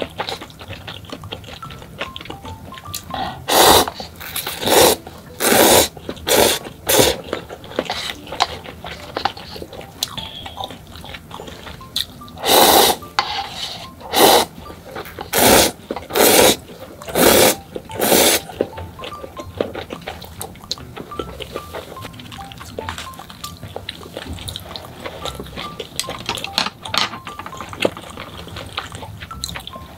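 Instant noodles slurped from a cup with chopsticks: about eleven loud, wet slurps roughly one a second, in two runs with a short pause between. Soft background music plays under it.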